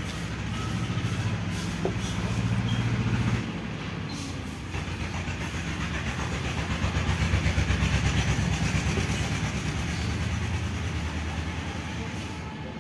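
A low mechanical rumble with a steady hum, louder for the first few seconds, dropping suddenly, then swelling again and fading away.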